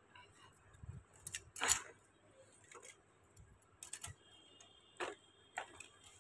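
A few scattered soft clicks and knocks of a phone being handled close to its microphone, the loudest about a second and a half in.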